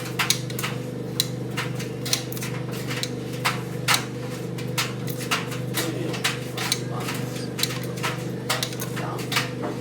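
White Knight C44A7W tumble dryer running: a steady motor hum with frequent irregular knocks and clicks, two or three a second.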